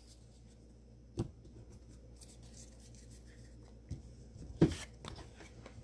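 Trading cards and foil card packs being handled: faint rustling with two sharp taps, one about a second in and a louder one near the end.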